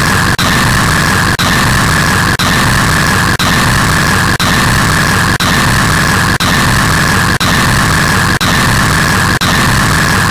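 Very loud, harsh white noise with a strong band in the upper mids, broken by a brief dropout about once a second, like a short noise clip looped over and over.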